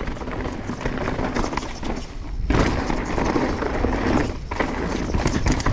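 Mountain bike rolling fast over rocks: a steady clatter of tyres, chain and frame knocking over the rough ground, with wind rumble on the microphone. It is loudest in the middle of the stretch.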